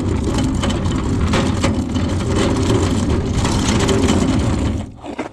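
Loud, steady rumbling and rattling noise, dense with small clicks, that cuts off suddenly near the end.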